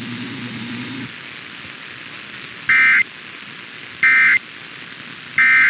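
Emergency Alert System end-of-message (EOM) data bursts: three short, loud, buzzing bursts of digital SAME tones, about a second and a third apart, heard over steady radio hiss. They signal the end of the alert.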